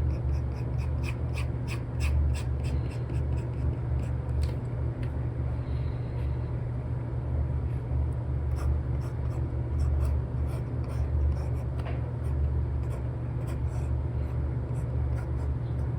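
Apple Pencil 2 with an Elecom tip tapping and scratching on an iPad screen covered with a paper-like film, in quick clicks that come in clusters. A steady low rumble of background noise lies under it.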